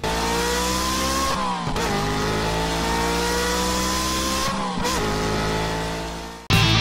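Car engine accelerating hard through the gears: its pitch climbs steadily, drops at a gear change about a second and a half in, climbs again and drops at a second shift near five seconds, then fades away. Loud electric-guitar rock music cuts in just before the end.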